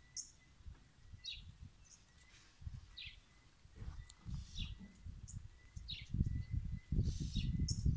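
Small birds chirping, short high calls repeating about once or twice a second, over a faint steady high tone. Low, uneven rumbling noise on the microphone grows heavier in the second half.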